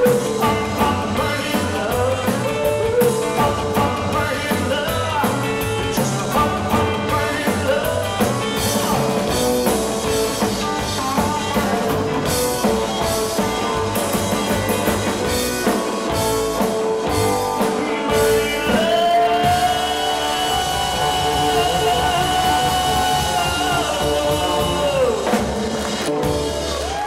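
Live 1950s-style rock 'n' roll band playing: a male singer over electric guitar, slapped upright double bass and drum kit. In the second half a long high note is held for about six seconds, then slides down as the song nears its close.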